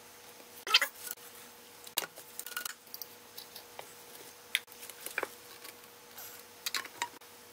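PVC drain pipe and fittings being handled and pushed together: scattered light plastic clicks, knocks and rubbing, over a faint steady hum.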